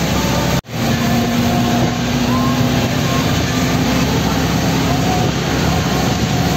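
Steady road noise of a vehicle on the move, a dense hiss with a faint engine hum under it; it cuts out for a split second about half a second in.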